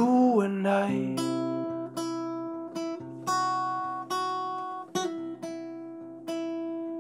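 Acoustic guitar playing a song, chords picked or strummed about twice a second, each ringing out before the next. A sung note slides and ends in the first second, before the guitar carries on alone.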